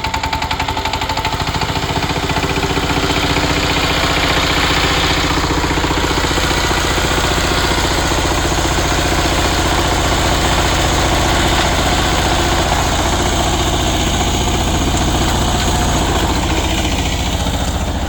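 Small engine running steadily at a fast, even beat, a little louder after the first second or two.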